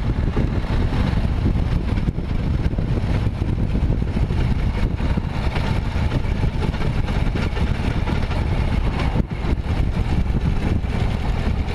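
Harley-Davidson Sportster XLH1200's air-cooled V-twin engine running steadily, with a dense low rumble and a brief dip in loudness about nine seconds in.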